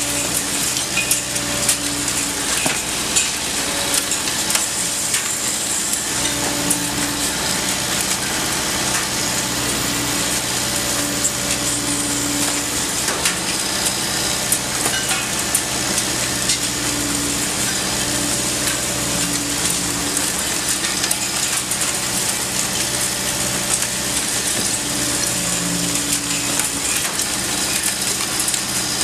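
Liebherr R 950 demolition excavator's diesel engine running steadily under a continuous hiss, with scattered crackling and clattering of breaking concrete and falling debris.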